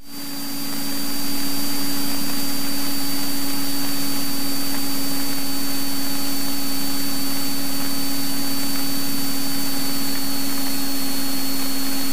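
Steady in-flight cabin noise of a Cessna 172N Skyhawk: engine and propeller drone with hiss and a constant hum, swelling to full level in the first second or so and then unchanging.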